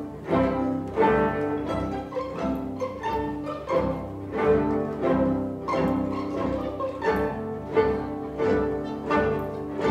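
Chamber string orchestra of violins, cellos and double bass playing a bowed passage, with new notes coming in a steady pulse.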